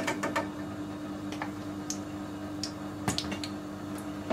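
Faint scattered crackles and ticks from a lump of coconut oil melting in a heating nonstick frying pan, over a steady low hum.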